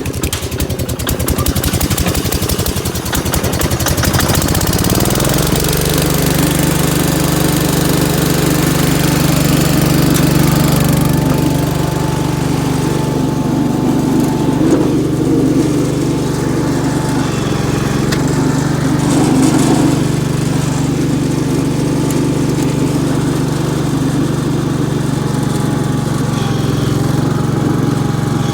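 Gravely 812 tractor engine running cold with the choke stuck on, which the owner suspects: uneven for the first few seconds, then its speed rises about four seconds in and it settles into steady running.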